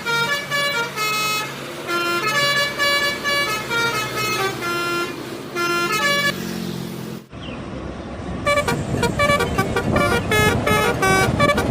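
Bus telolet horns, a set of multi-tone air trumpets, playing a quick tune of short changing notes. About seven seconds in the sound cuts abruptly to another bus's telolet tune over road noise.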